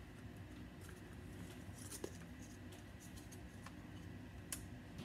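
Faint handling noises: light clicks and rustles as rubber bands are shifted around a round cardboard box, with a sharper click about two seconds in and another near the end.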